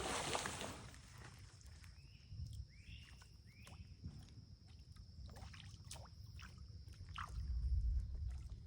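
Quiet creekside outdoor ambience. A wash of water noise fades out in the first second, then several short falling chirps sound over a steady thin high hum, with a low rumble rising briefly near the end.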